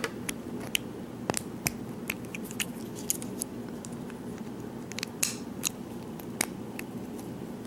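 Irregular small metallic clicks and taps of a hand-made lock and its key and tools being handled and worked, over a steady low hum.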